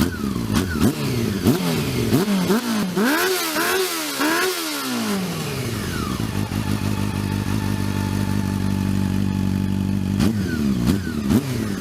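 Honda CB400 inline-four engine with a Yoshimura Cyclone carbon-look slip-on exhaust, revved in a quick series of throttle blips that then fall away to a steady idle. Two more short blips come near the end.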